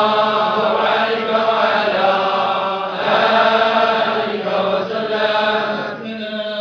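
A large group of men of the Tijani Sufi order chanting dhikr together in unison, in long held phrases with short breaks between them.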